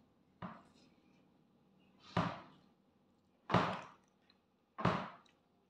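Close-up mukbang eating sounds, as a person eats rice, pork and beans by hand from a steel plate. There are four separate short noisy sounds, about a second and a half apart, each fading quickly.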